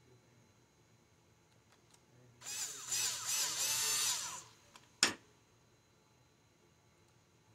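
Small cordless drill/driver running for about two seconds, its speed rising and falling several times, followed by a single sharp click about half a second after it stops.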